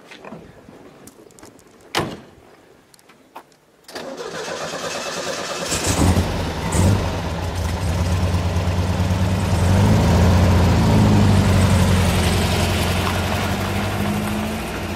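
A thump about two seconds in, then a 1956 Volkswagen Beetle's 1600 cc dual-carburettor air-cooled flat-four is cranked at about four seconds, catches about two seconds later and runs, its pitch rising and then falling near the middle.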